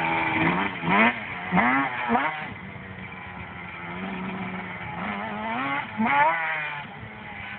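Yamaha Banshee 350 quad's twin-cylinder two-stroke engine revving hard, its pitch climbing sharply three times in quick succession in the first couple of seconds and again in a longer rise near the end, growing fainter as the quad pulls away.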